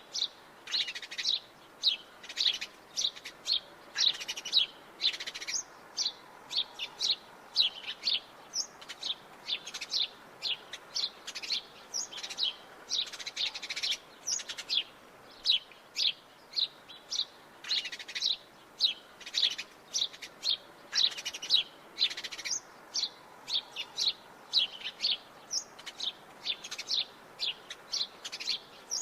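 Sparrows chirping: a steady run of short, high chirps, several a second, one after another.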